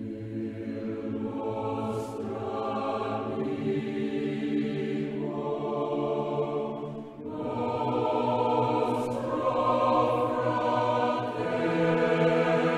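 A choir singing, holding long chords that change every second or two; it grows louder after a short break about seven seconds in.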